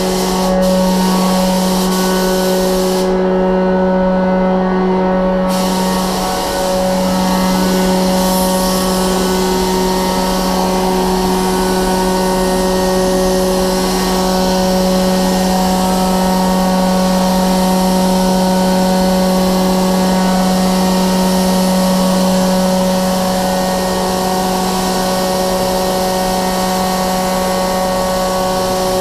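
Paint spray gun hissing as it sprays paint, over the steady hum of a paint booth's ventilation fan. The spray hiss stops for about two seconds a few seconds in, then carries on.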